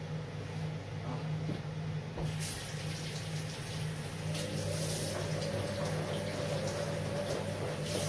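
Kitchen tap running into a sink while a fish is handled and rinsed under it, starting about two seconds in, over a steady low hum.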